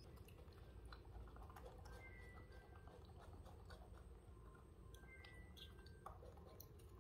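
Faint chewing and biting: two young macaques eating tomatoes, with many small wet clicks.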